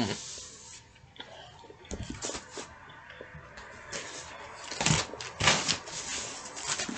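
Irregular bursts of rustling and clicking close to the microphone, loudest about five seconds in.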